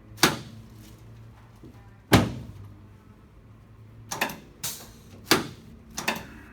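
Chiropractic drop table clunking: a series of sharp knocks, about six, as the table's padded head and body sections drop under the adjustment thrusts, the loudest about two seconds in.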